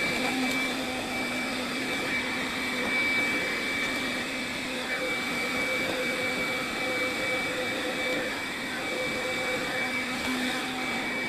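Household vacuum cleaner running steadily: a continuous rush of air with a steady motor tone over it.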